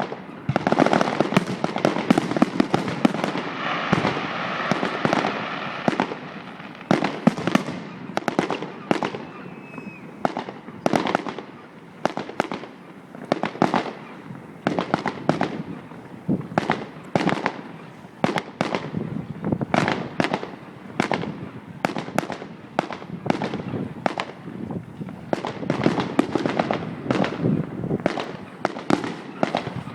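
Aerial fireworks display: a continuous barrage of shell bursts and bangs, several a second, densest in the first few seconds.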